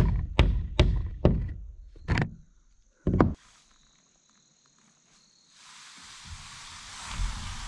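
A hammer driving plastic cap nails through synthetic roof underlayment into OSB sheathing: about six sharp strikes in the first three seconds or so. A steady hiss comes in near the end.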